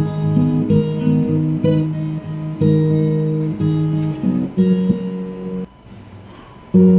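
Background music: acoustic guitar playing chords, briefly dropping away near the end before starting again.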